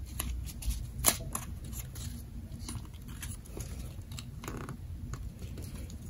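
Printer paper rustling and clicking as hands smooth clear tape along a folded paper plane. There are a few sharp taps in the first second and a brief crinkle about four and a half seconds in, over a faint low hum.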